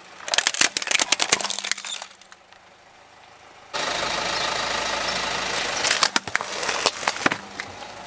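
Hard plastic of a toy truck cracking and crunching under a car tyre in a quick run of snaps for about two seconds. After a short lull, a small toy motor and gears start whirring suddenly and run steadily, with a few clicks, easing off near the end.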